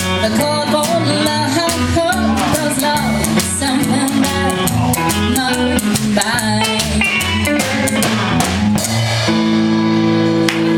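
Live band playing the instrumental close of a rock and roll song: drum kit, electric guitar and bass, ending about nine seconds in on a final chord held until the end.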